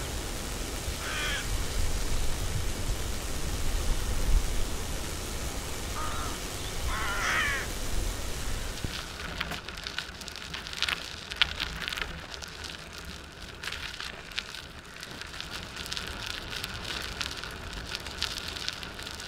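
Wind rumbling on the microphone, with two brief chirps. From about nine seconds in, bicycle tyres crunch and crackle over a gravel track, with many sharp clicks and rattles.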